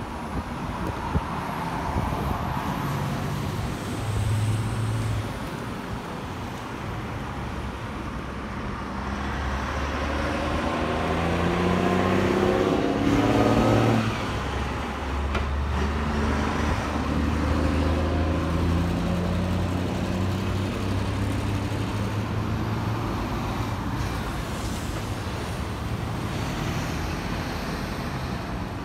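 Fire trucks driving past one after another. A large truck's engine grows louder and drops in pitch as it passes close by about halfway through, and another truck engine follows.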